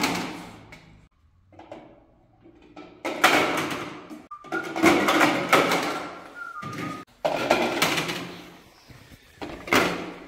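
Large plastic rings of a giant four-in-a-row game dropping into the plastic grid and clattering down the columns, several times in turn.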